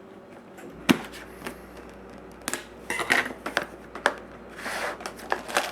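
Packaging being opened by hand: a sharp click about a second in, then scattered clicks, taps and a short rustle of cardboard and plastic wrapping as a sports card box is opened.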